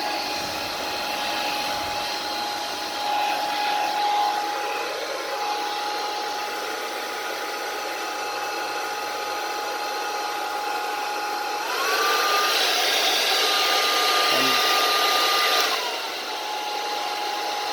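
Geepas hair dryer with a DC motor running, a steady airy rush with a whine. About twelve seconds in, the whine rises in pitch and the blowing gets louder as the motor speeds up to a higher setting, then drops back to the lower speed about four seconds later.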